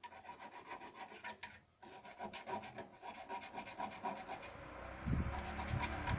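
Rapid rhythmic scratching, about five strokes a second, with a low rumble coming in near the end.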